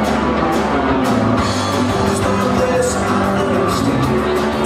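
Live rock band playing: electric guitar and bass guitar over a drum kit keeping a steady beat.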